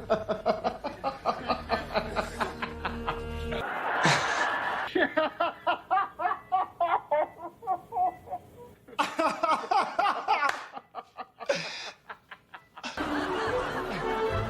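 Rapid, choppy laughter over background music, cutting out briefly near the end.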